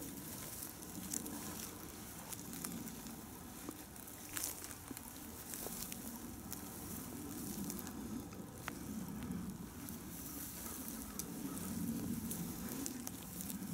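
Slow footsteps crunching and crackling through dry palm fronds and leaf litter, with scattered small snaps of twigs and debris.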